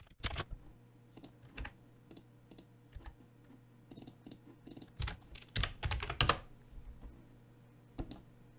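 Computer keyboard and mouse clicking in scattered taps, with a quick run of keystrokes about five to six seconds in as a short name is typed.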